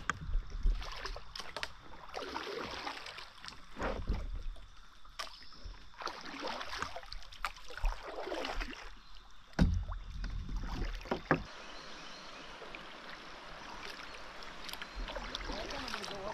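Kayak being paddled on a fast-flowing river: the paddle blades swish through the water every second or two, with a few sharp knocks.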